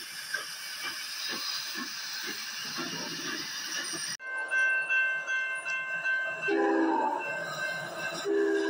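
Steam locomotive chuffing, with regular exhaust beats about two a second. About four seconds in, the sound cuts abruptly to a train horn sounding, with a steady high tone and then two short, lower blasts near the end.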